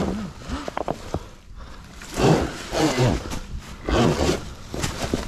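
A man grunting and breathing hard with strain, with three loud heavy exhalations about two, three and four seconds in.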